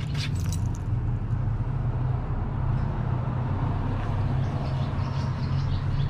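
A motor vehicle running nearby: a steady low rumble. There is a brief hiss in the first half-second.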